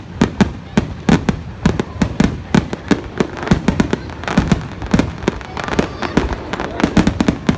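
Aerial fireworks shells bursting in quick, irregular succession: many sharp bangs, several a second, each with a deep boom.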